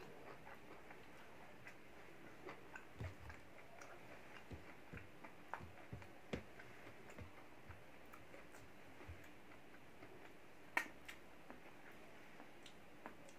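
A person eating rice and chicken by hand: scattered soft clicks and smacks of chewing and of fingers working the food on a plate, with one sharper click near the end, over a faint steady hiss.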